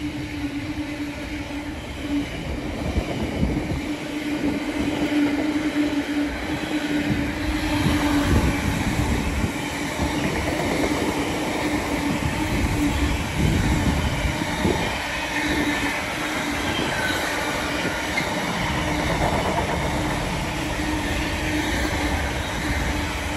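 Freightliner Class 66 diesel locomotive and its container wagons passing at speed, the wheels clattering on the rails over a steady drone. Some wagons have flat wheels, which knock as they roll.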